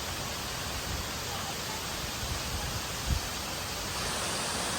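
Steady rushing water, an even hiss with no pitch, that steps up slightly near the end. There is one brief low thump about three seconds in.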